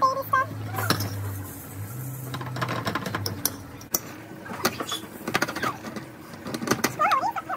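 Small kitchen knife cutting raw potatoes into chunks, the blade clicking and tapping on the plate again and again. Near the end come high squealing vocal sounds from a baby.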